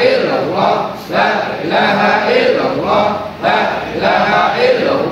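Many men's voices chanting dhikr in unison, a short phrase repeated over and over with a brief dip about once a second.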